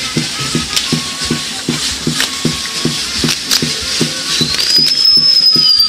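Firework tower (castillo) burning: a steady hiss of spark fountains with scattered sharp crackles, over a fast low pulsing about four times a second. About four seconds in, a whistling firework starts up, rising a little in pitch and then slowly falling.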